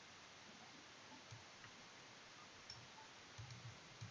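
Near silence with several faint computer-mouse clicks, a few in quick succession near the end.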